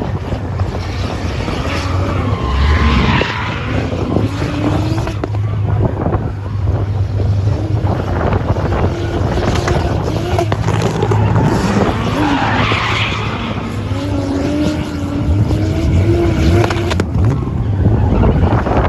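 Drift car sliding through a gymkhana course, its engine revving up and down over a continuous scrub and squeal of the tyres.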